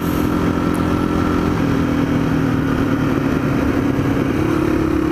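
Yamaha XT225 dual-sport's single-cylinder four-stroke engine running at a steady cruise under a rush of wind noise. The engine note steps up slightly near the end.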